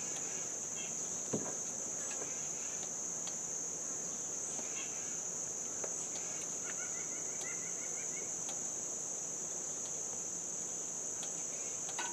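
Steady high-pitched insect chorus droning without a break, with a few faint metallic ticks and a soft knock about a second and a half in.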